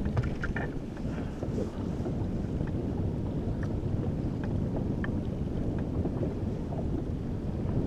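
Wind rumbling steadily on the microphone out on open water, with a few faint light clicks scattered through it.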